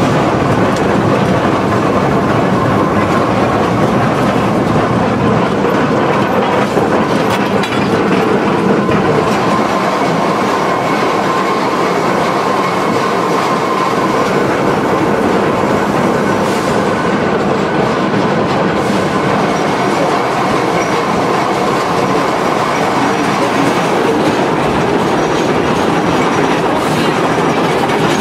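Climax geared steam locomotive and its train running along the track: a steady rumble and clatter of wheels on rail, with a faint steady whine.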